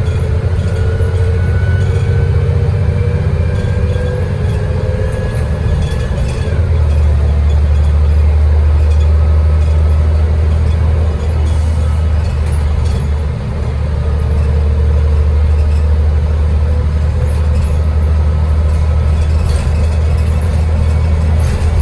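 City transit bus running along the road: a steady low engine and road rumble with faint whining tones that slowly shift in pitch. The rumble grows louder about six seconds in.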